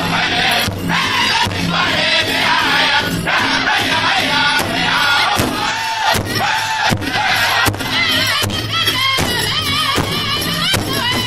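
Powwow drum group singing an intertribal song in unison, many men's voices together over a large powwow drum struck by all the singers at once with beaters in a steady beat.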